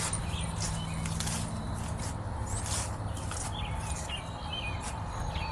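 Small birds chirping intermittently in the background over a steady low hum.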